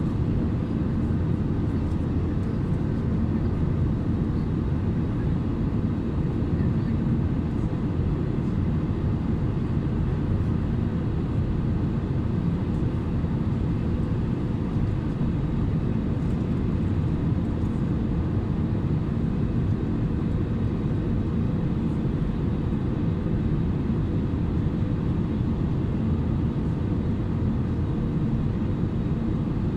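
Steady cabin drone of an Airbus A320neo, the rumble of its Pratt & Whitney geared turbofan engines and airflow heard from a seat near the wing, with a faint steady hum over the low rumble.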